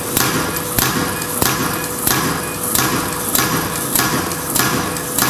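Automatic plastic zipper zigzag cutting machine running, its cutter striking in an even rhythm, about three strokes every two seconds, over a steady hum.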